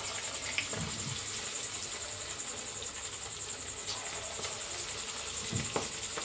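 Hot oil sizzling steadily in an iron kadai as battered chicken pakoras deep-fry. A thin, high, evenly pulsing whine runs along with it.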